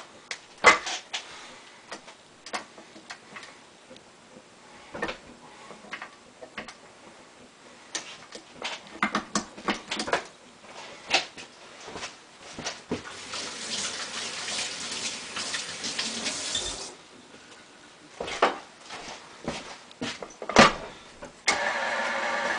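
Clanks and knocks of a stainless steel bowl and beater being fitted onto a stand mixer, with a few seconds of steady hiss midway. Near the end the stand mixer's motor switches on and runs with a steady whine.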